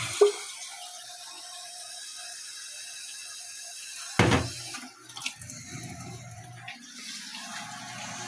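Kitchen tap running as water is drawn to add to a pasta sauce, with a sharp knock about four seconds in. The flow stops just before five seconds, and softer clatter follows.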